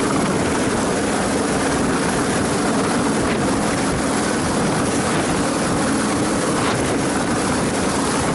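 Helicopter engine and rotor running steadily at close range.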